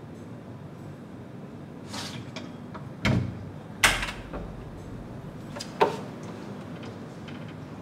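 A few door knocks and bangs: a dull thump just after three seconds, the loudest sharp bang about a second later, and a last sharp knock near six seconds, with fainter knocks and rustles between them.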